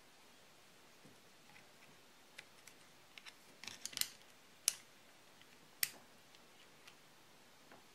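Scattered small, sharp metal clicks and taps, a cluster about four seconds in and single sharper ones soon after: a screwdriver tip working the trigger spring back onto its pin in a Porter Cable FN250C finish nailer's metal trigger housing.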